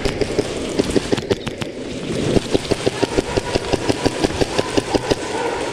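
Airsoft guns firing at the start of a speedball match: a fast, even rattle of sharp shots, denser and more regular from about two seconds in.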